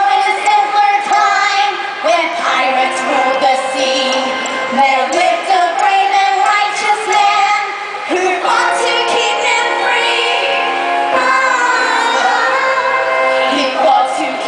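Upbeat pop song with a sung vocal, playing continuously.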